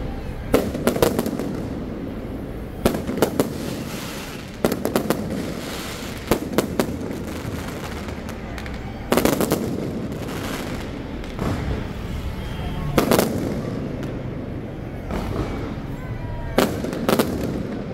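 Aerial fireworks bursting overhead: clusters of sharp bangs every two seconds or so, with a steady rumble between the volleys.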